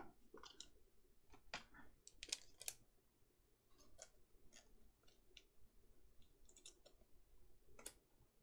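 Faint, irregular clicks and light scrapes of glossy 2020 Panini Mosaic football cards being flipped and slid against one another by hand.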